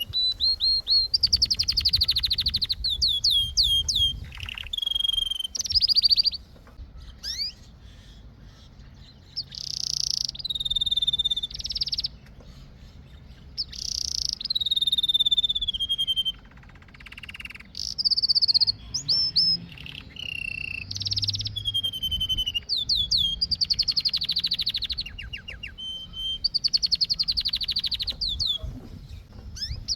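Domestic canary singing: phrases of fast trills and falling whistled notes, broken by short pauses of a second or two.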